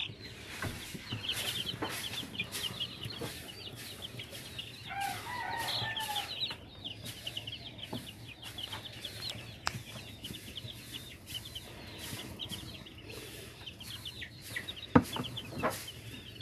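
A brood of chicks peeping continuously, many short high chirps overlapping, with a lower call about five seconds in. A few sharp knocks, the loudest a thump near the end.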